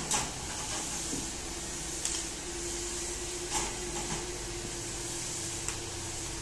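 Light clicks and knocks of plastic feeding-bottle parts being lifted out of a bottle sterilizer, a handful of scattered taps over a steady hiss.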